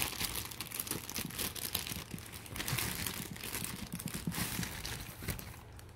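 Plastic packaging crinkling and rustling as it is handled, in many small irregular crackles.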